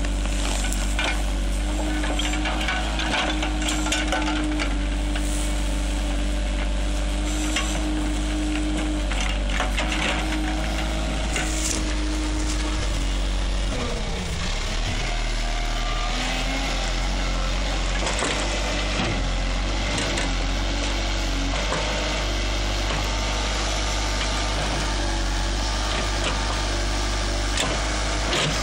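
JCB Sitemaster backhoe loader's diesel engine running steadily under load while its bucket tears a tree stump and roots out of the ground, with crackling and snapping of roots and soil. About halfway through, the engine note drops and then comes back up.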